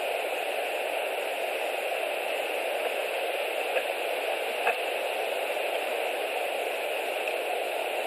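Steady hiss on an outdoor nest-camera microphone, with two faint clicks under a second apart near the middle.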